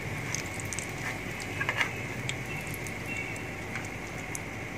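Breaded chicken-and-potato kababs sizzling in shallow oil in a frying pan, the oil crackling steadily, with a few clicks from a metal spatula against the pan about a second and a half in as a kabab is lifted out.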